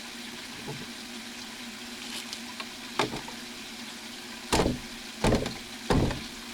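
PVC drain fittings being knocked together as a tee is pushed onto a short pipe for a friction fit: a single sharp knock about three seconds in, then three or four louder knocks close together near the end.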